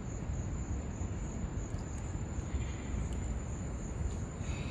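Steady outdoor background: a low rumble with a thin, steady high-pitched whine over it, and no distinct events.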